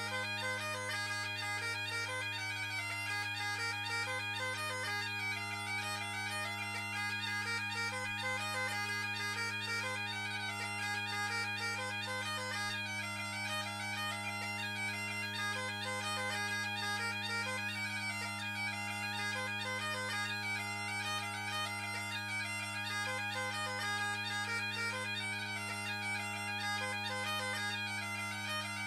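Great Highland bagpipes playing a lively pipe tune: steady drones sound under a fast chanter melody full of quick grace-note ornaments, without a break. The drones are tuned to the chanter's low G instead of the usual low A, giving the set a G-major drone.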